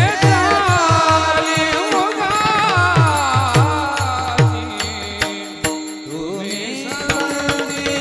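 Men singing a Marathi Varkari kirtan chal in unison, with pairs of small brass hand cymbals (talas) clashing in rhythm. A drum beats steady strokes under the singing and drops out about five seconds in while the voices hold a note.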